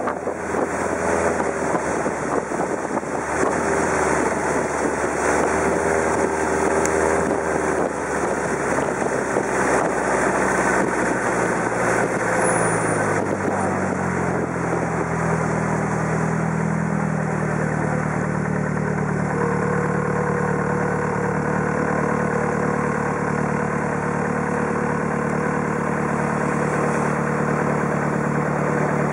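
Boat engine running under way, then throttled down about halfway through to a steady idle, over a steady rush of water and wind.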